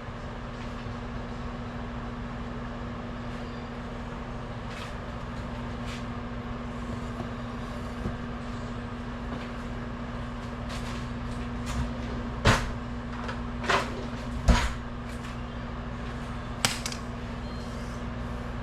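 A steady low hum with a few sharp knocks and clatters of kitchen things being handled, four of them standing out in the second half.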